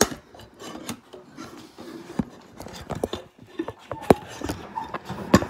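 Handling noise: hands rubbing and bumping against the recording phone while it is being repositioned, with several sharp knocks, the loudest about four seconds in and near the end.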